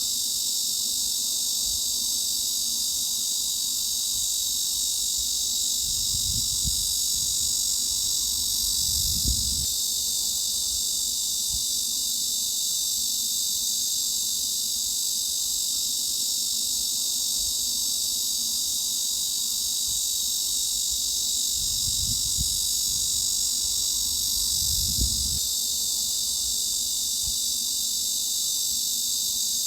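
Cicadas buzzing in a dense, steady, high-pitched drone, with four faint low thumps underneath.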